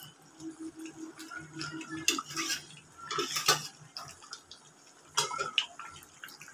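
Metal spatula scraping and knocking against an aluminium kadai as a pan of mutton curry is stirred, in short bursts about two, three and a half and five seconds in.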